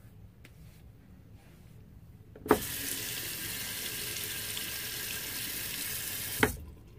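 Water tap turned on with a click, water running into a sink in a steady hiss for about four seconds, then turned off with another click.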